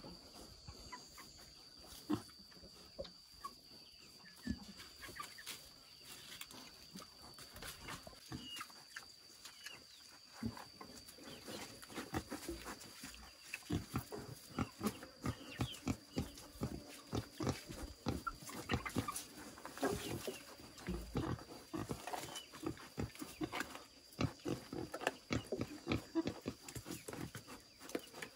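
Young wild boars eating leafy fodder, chewing noisily in quick, wet chomps that come thick and fast from about halfway through.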